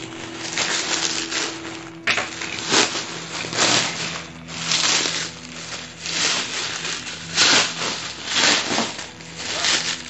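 Clear plastic packaging film crinkling and rustling in repeated noisy bursts as it is cut and pulled off a new rucksack, with a sharp click about two seconds in.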